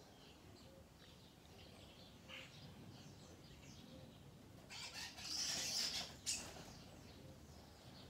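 Faint, scattered chirps of small garden birds. About five seconds in comes a loud harsh rasping noise lasting about a second and a half, which ends in a sharp click.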